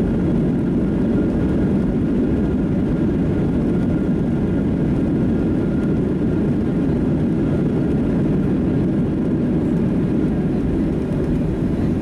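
Steady cabin noise of a Boeing 737-700 heard from inside the passenger cabin: its CFM56 jet engines and the rushing airflow, a constant low rumble with a faint high hum over it.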